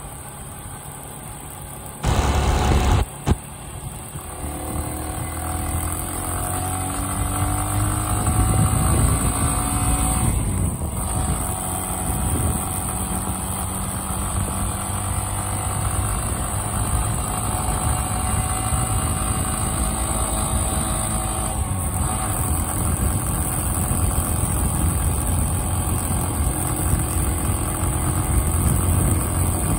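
Motorcycle engine running under way, its pitch climbing as it accelerates, with brief drops about ten and twenty-two seconds in, over steady road and wind noise. A short loud rush of noise about two seconds in.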